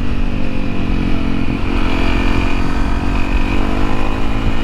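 Honda CRF250L's single-cylinder engine running while the bike is ridden, its note sagging slightly and then climbing again about two seconds in.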